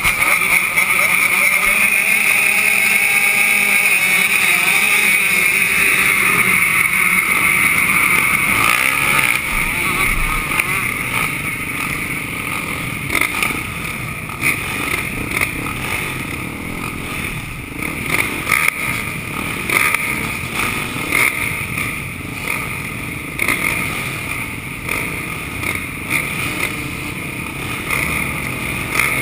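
Several motocross bikes running at the starting gate, waiting for the gate to drop, the nearest bike's engine close to the microphone. The pitch wavers as throttles are blipped during the first several seconds, and the engines settle a little quieter after about nine seconds.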